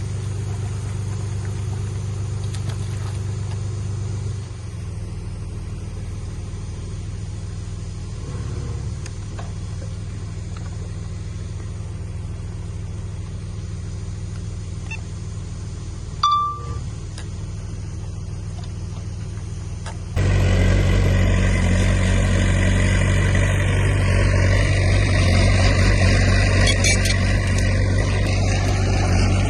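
Heavy diesel earthmoving machinery running at a steady drone, with one short sharp sound about sixteen seconds in. About twenty seconds in a louder, rougher engine sound takes over abruptly.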